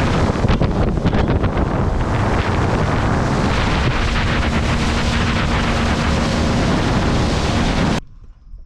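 Loud wind buffeting the microphone, a rough steady roar that starts suddenly and cuts off abruptly about eight seconds in.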